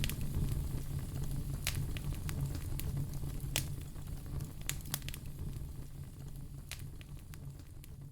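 Wood fire in a fireplace crackling, with scattered sharp pops over a low steady rumble, the whole sound fading steadily.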